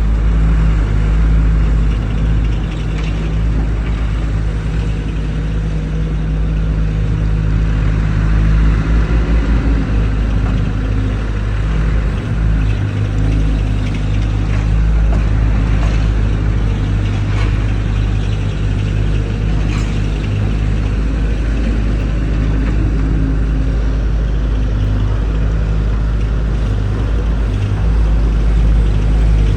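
Skid steer engine running steadily with a low hum, with a few faint knocks over it.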